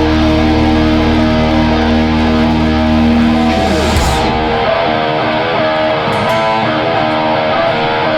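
Live hardcore band with distorted electric guitars over bass, holding chords. About four seconds in, the deep bass and high hiss drop away and the guitars play on alone.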